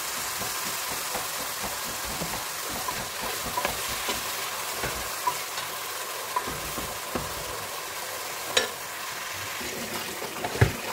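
Chopped onion and garlic sizzling in oil in an aluminium pot while a wooden spatula stirs and scrapes through it, with light scattered clicks. A sharper knock comes near the end.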